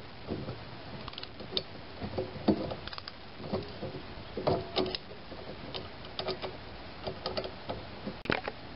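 Socket ratchet clicking, with small metallic clinks of the steel exhaust clamp, as it works the clamp nut on and off in uneven spells. The clamp is not tightening down.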